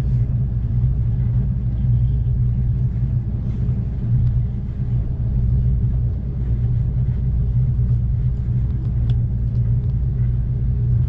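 Steady low rumble of an Amtrak Cascades passenger train running at speed, heard from inside the car, with a few faint clicks.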